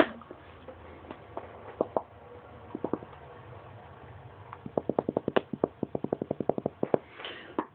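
A can of Copenhagen snuff being packed: a fast run of about twenty sharp taps on its lid, roughly ten a second, starting a little past halfway, after a few scattered handling clicks.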